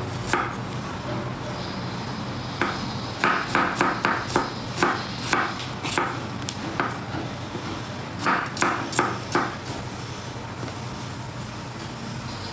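Kitchen knife chopping smoked beef on a cutting board: irregular runs of sharp taps, busiest from about three to five seconds in and again around eight to nine seconds, then stopping.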